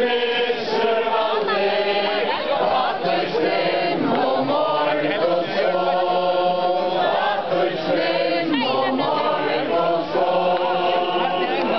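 Large crowd of men and women singing together in communal song, slow held notes moving from one pitch to the next.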